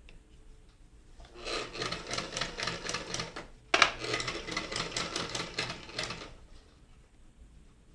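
Kenmore 158.10302 compact portable mechanical sewing machine stitching in two runs of about two seconds each, a rapid even rhythm of roughly six stitches a second. A single sharp click comes between the two runs.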